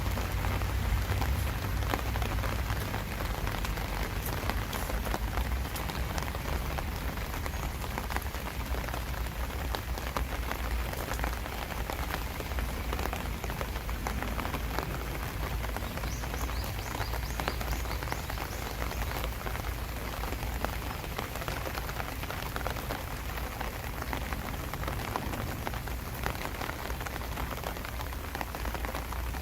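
Steady summer rain falling, an even hiss with scattered ticks of drops over a low rumble.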